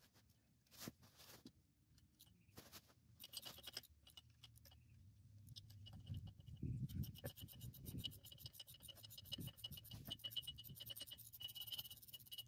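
Faint hand-tool work on a rusty Model T rear axle: scattered clicks and a low rustle, then from about halfway a steady run of rapid metallic clicks.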